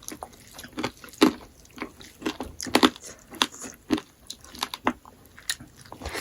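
Close-up mouth sounds of eating smoked pork: irregular chewing and biting, with wet smacks and small crunches.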